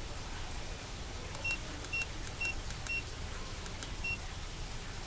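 A series of short, high electronic beeps: four about half a second apart, then one more near the end, with faint clicks, over a steady low rumble.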